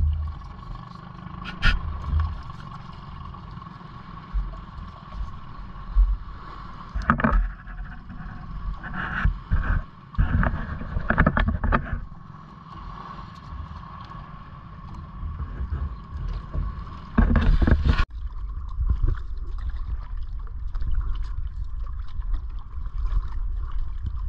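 Low rumble of wind and water around a small outrigger canoe, with a faint steady high tone throughout. Several clusters of short, loud handling noises come as crab bait is worked onto a hook on a styrofoam float.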